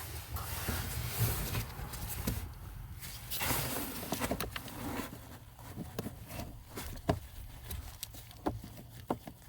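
Hands working a plastic HVAC blend door actuator into place under the dashboard: rustling and scraping in the first few seconds, then a string of small plastic clicks and taps as it is lined up on its guide pin.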